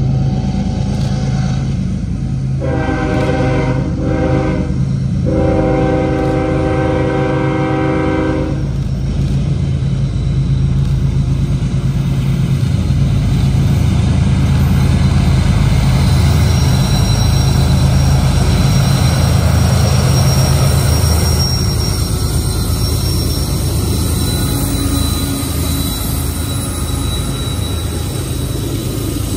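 Union Pacific diesel freight locomotives working hard as they leave a tunnel: a steady low engine rumble, with two multi-tone air-horn blasts about 3 and 5 seconds in, the second one longer. The engines then pass close and get louder, and a thin high whine comes in from about 16 seconds.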